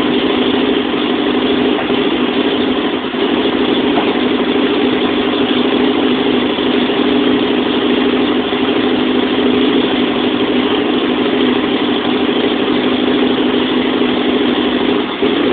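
2006 Aprilia Caponord's V-twin engine idling very roughly just after a cold start, with a couple of brief dips in level. The bike has a rough idle that keeps making it stall.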